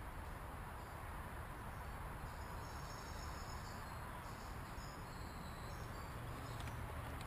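Insects chirping, high-pitched, most clearly through the middle, over a steady low outdoor rumble.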